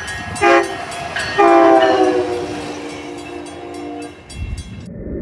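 TriMet WES diesel commuter railcar sounding its multi-tone horn: a short blast, then a long one that dips slightly in pitch and fades as the railcar goes by. Faint regular clicks of wheels over rail joints run underneath, and a low rumble comes near the end.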